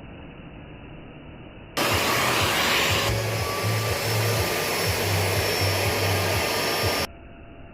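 Kärcher washing vacuum cleaner running with a steady motor rush. About two seconds in it jumps to a much louder, brighter rush with a low hum that cuts in and out, then drops back abruptly to the duller, quieter rush near the end.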